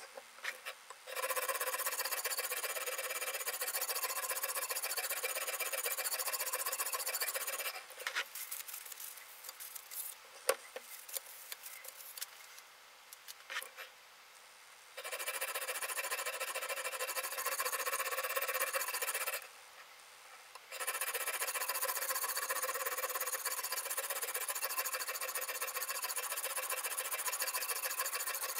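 Sharpening stone on a guided-rod knife sharpener rubbing back and forth along the edge of a XINZUO Damascus kitchen knife, a steady grinding rasp. It comes in three long runs, broken by a quieter spell of about seven seconds with scattered clicks, and a short break about two-thirds through.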